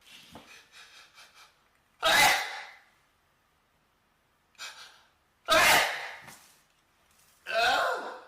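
A man's sneezing fit: a few quick catching breaths, then loud, sudden sneezes about two seconds in, around five and a half seconds, and again near the end, with a fainter one in between.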